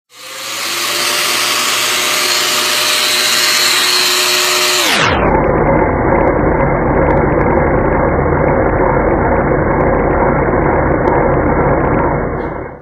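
A power tool's motor starts and runs steadily with a loud hiss and a steady hum. About five seconds in, the sound turns suddenly duller and continues as a Festool Domino joiner, with its dust-extraction hose attached, runs against a walnut block. It stops abruptly at the very end.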